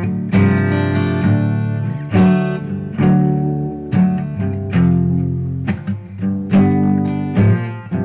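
Acoustic guitar music: chords plucked and strummed about once a second, each left to ring.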